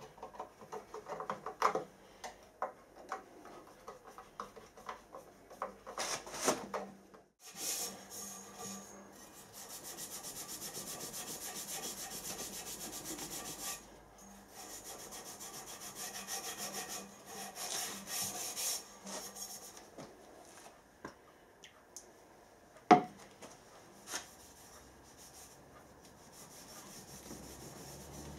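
Copper exhaust pipe being rubbed clean by hand, in long runs of quick back-and-forth scratchy strokes, with one sharp click a few seconds after the strokes stop. At first there are small clicks of a screwdriver and tools at the pipe clamp.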